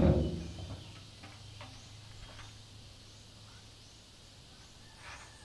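Hollow boom of an empty steel oil drum being tipped over, loud at first and ringing away over about a second. Then quiet, with a few faint bird chirps over a low steady hum.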